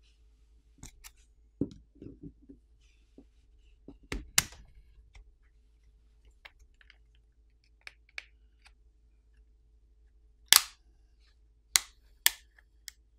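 Plastic catches of a smartphone's back housing snapping loose as a plastic pry tool is worked along the edges: scattered sharp clicks and snaps, the loudest about four seconds in and several more near the end.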